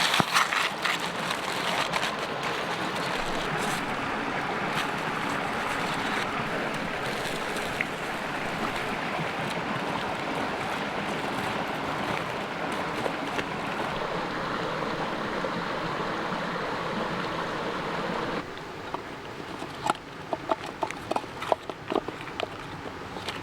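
Steady rushing of a mountain creek. About eighteen seconds in the rushing drops away suddenly, leaving a quieter background with scattered sharp clicks and crackles.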